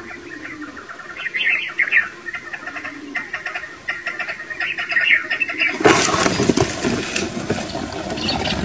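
Chukar partridges calling in short, repeated chirpy notes, then about six seconds in a sudden loud rush of noise as the net drop trap comes down and the caught birds flap their wings against the ground and the net.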